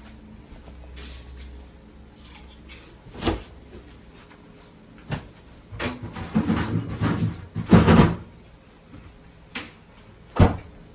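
Kitchen things being put away: scattered knocks of cupboard doors and items set down, with a busier run of clattering about six to eight seconds in and a sharp knock near the end.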